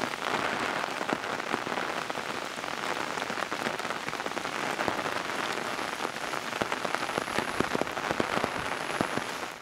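Steady rain falling, with many separate drops pattering close by.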